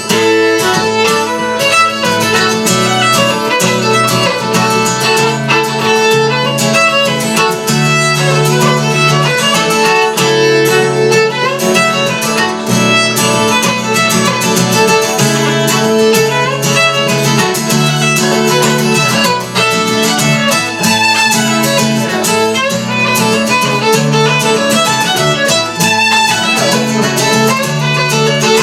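Fiddle playing a fast traditional dance tune in quick running notes, with guitar accompaniment underneath.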